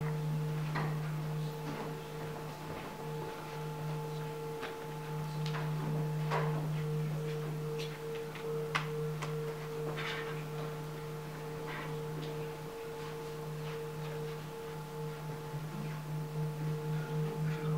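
Himalayan singing bowl kept singing by a felt-headed mallet worked around its rim, giving a steady, sustained drone with a low and a higher tone. Near the end the tone begins to pulse, about twice a second.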